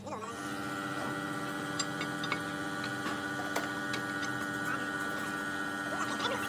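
Steady machine hum of several fixed tones, with scattered light clicks.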